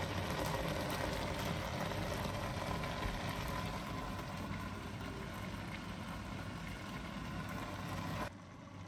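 Pot of food simmering on an electric hob: a steady hiss with a faint hum. The sound drops suddenly near the end.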